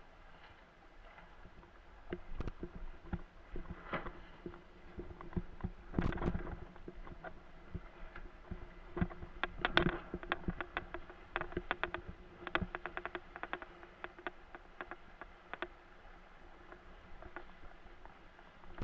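Windsurf board planing over choppy water: irregular knocks and slaps from the board and rig hitting the chop, often in quick runs and busiest in the middle, over a faint wash of water.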